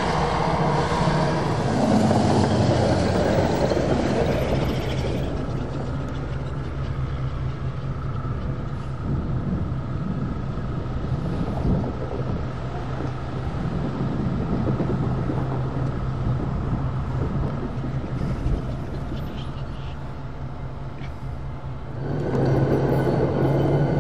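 Diesel locomotive engines running with a steady low drone, louder for the first few seconds and again near the end.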